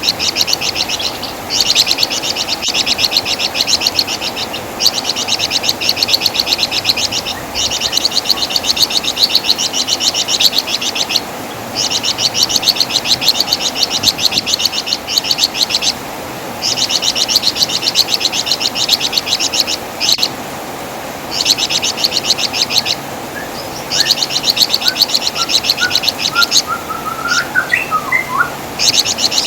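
Flamboyan bird (wergan Jawa) singing in rapid, high-pitched chattering trills, each bout lasting a few seconds with short breaks between. Near the end a few fainter, lower rising chirps come in.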